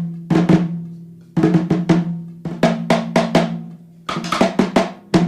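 Background music: a drum intro of short groups of hits, roughly one group a second, over a held low note.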